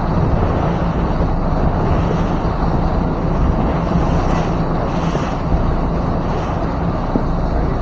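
2000 StarCraft powerboat under way: its engine drones steadily, with wind buffeting the microphone.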